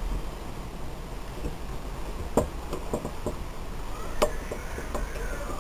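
A few sharp clicks and taps of glass and plastic, mostly in the second half, as a cracked tablet touchscreen digitizer is prised out of its plastic frame.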